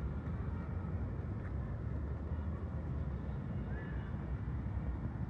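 Steady low background rumble of distant city traffic, with a faint short high note about four seconds in; no loud goose honking.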